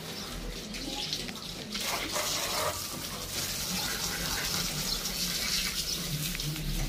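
Water running from a garden hose and splashing onto a motorcycle, a steady rush that gets louder about two seconds in.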